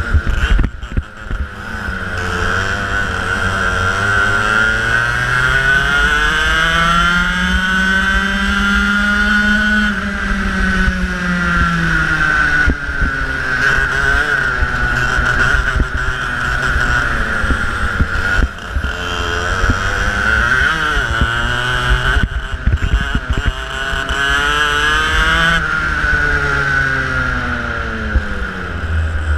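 Racing kart engine heard onboard, revving up along the straights and dropping in pitch as it slows for corners, rising and falling several times, with a low rumble underneath.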